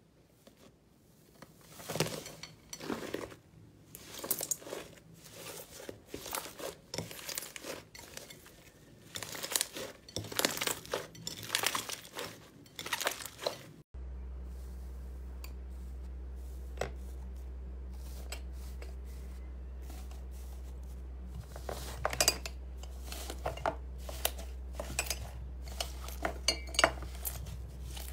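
Crunchy slime crackling and crunching under pressing fingers, in irregular clusters of crisp crackles. About halfway through the sound changes abruptly to a steady low hum, with the crackling returning in sparser clusters toward the end.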